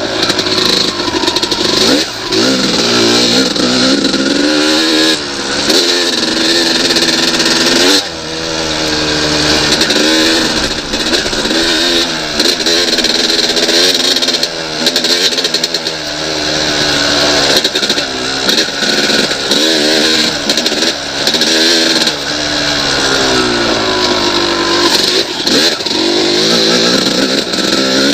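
1998 Yamaha YZ250 two-stroke single-cylinder dirt bike engine, ridden hard: it revs up and down over and over, the pitch climbing and falling every second or two, with short throttle chops now and then.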